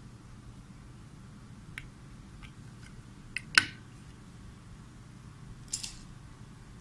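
Small clicks from handling a plastic electronics enclosure, then one sharp knock about three and a half seconds in as the box is set down, and a brief rustle near the end.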